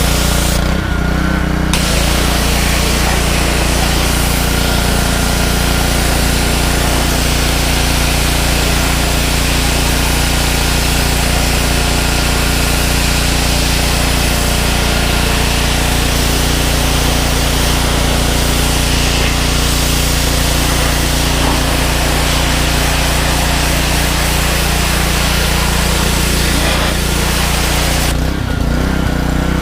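Engine-driven pressure washer running steadily. About two seconds in the wand starts spraying through its green 25-degree tip, a loud hissing jet that stops just before the end while the engine keeps running.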